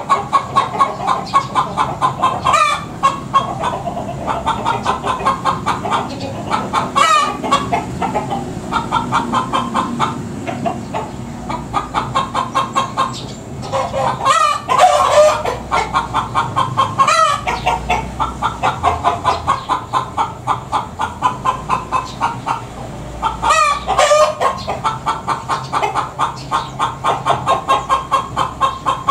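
Chickens clucking in a rapid, continuous run, broken every few seconds by loud 'petok' squawks: the cackling of hens.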